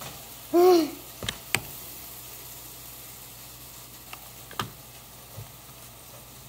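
A short sung note from a girl, rising and falling, about half a second in, then a handful of sharp, separate knocks and clicks over a steady background hiss.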